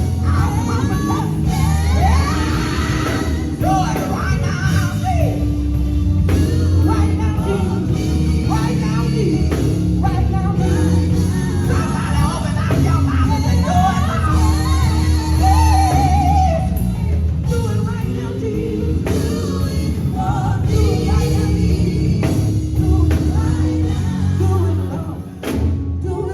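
Live gospel music: a band playing a steady groove with singing over it. The music dips briefly near the end.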